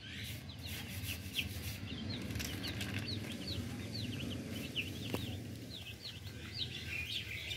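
Young domestic chicks peeping: a steady run of short, high-pitched cheeps, two or three a second.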